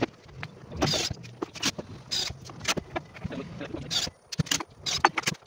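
Short bursts from a cordless drill driving screws into a plywood cabinet carcass, among irregular knocks and taps.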